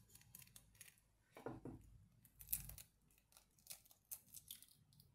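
Faint, irregular clicks and crackles of a quail eggshell being cut through with a blade and pried apart by hand, with two longer crackles about one and a half and two and a half seconds in.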